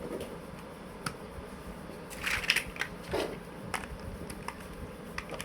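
Plastic building blocks being handled and pressed together: scattered sharp clicks and a short rattling cluster a little past the middle.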